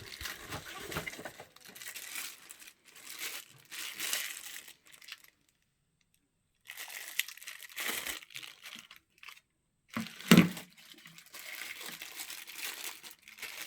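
Plastic packaging crinkling and rustling in irregular bursts as the cordless phone parts are unwrapped and handled, stopping for a moment in the middle, with one sharp knock about ten seconds in.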